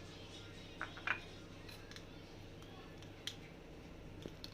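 A few light clicks and taps of kitchen utensils against a strainer and bowl as grated ginger is pressed for its juice: two about a second in and one more past three seconds, over a faint low hum.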